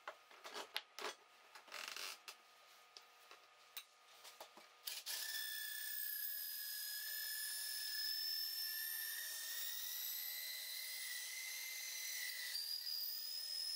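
A cordless drill spinning an octagonal wooden rod through a dowel-cutting jig fitted with a plane blade, the blade shaving the rod round: a steady drill whine with scraping, starting about five seconds in and stepping up in pitch near the end. Before it, a few knocks and clicks as the jig and rod are handled.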